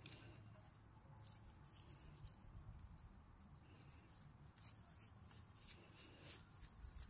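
Near silence, with faint scattered rustles and scratches of a hand moving dry soil and sunflower seeds, most of them in the second half.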